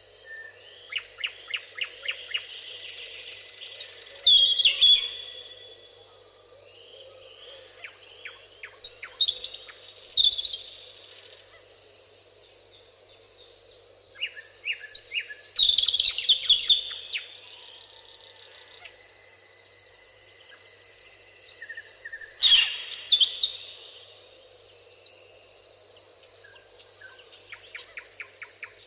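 Several songbirds singing in a meadow: rapid chirps and trills, with a louder song phrase every six seconds or so, over a steady high-pitched whine.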